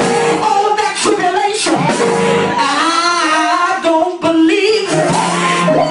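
Church music: held keyboard chords with a voice singing over them.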